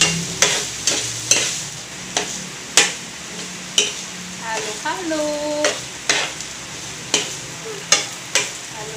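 A spatula scraping and knocking against a frying pan, about one or two sharp clicks a second, as a filling of flaked milkfish and diced vegetables is stirred and sautéed. A steady sizzle runs underneath.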